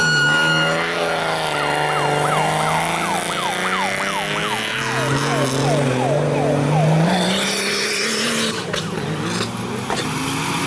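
Off-road 4x4 race vehicle's engine revving hard, its pitch rising and falling, with a quick run of short falling pitch swoops through the middle.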